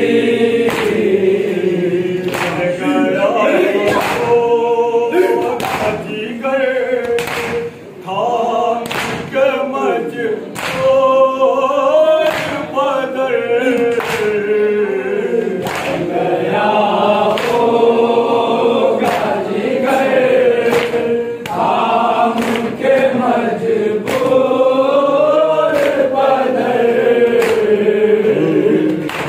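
Group of men chanting a noha (Shia lament) in unison, following a lead reciter, with a steady rhythm of open-hand chest beats (matam) a bit more than once a second under the singing.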